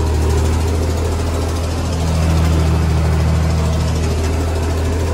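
Tractor engine running steadily as the tractor drives across a field, heard from inside the cab as a constant low hum.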